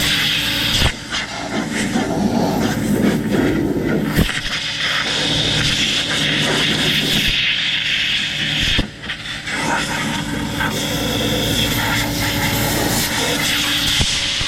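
Air blower blasting leftover hay and chaff out of a hay baler: a loud, steady rush of air over an engine-like drone, briefly dropping out about a second in, again around four seconds and near nine seconds.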